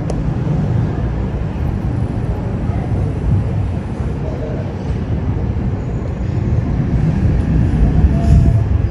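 Thunder rumbling low and continuously, swelling louder near the end.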